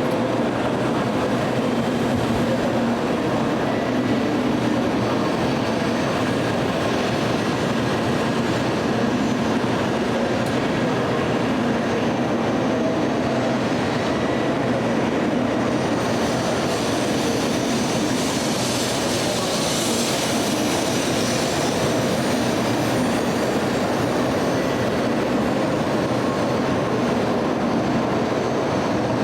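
Tokaido Shinkansen train running with a steady rumble and hiss, the hiss growing a little stronger about two-thirds of the way through.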